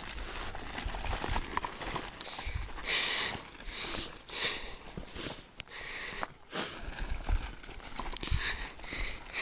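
Footsteps on a dirt hiking trail, irregular scuffing steps, with low rumble from the phone's microphone being handled as it is carried.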